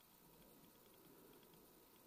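Near silence: a faint steady hiss with faint scattered ticks.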